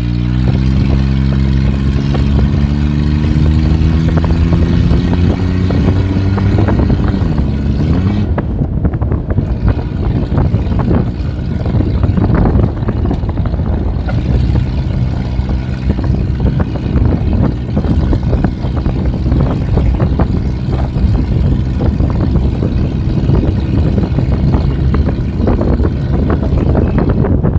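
Motor vehicle engine pulling away, its pitch climbing steadily for about six seconds, dipping and recovering about seven seconds in, then running steadily. Frequent rattles and knocks come in as it drives over unpaved ground.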